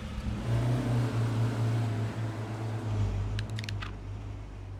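Car engine idling steadily, with a quick cluster of light clicks about three and a half seconds in.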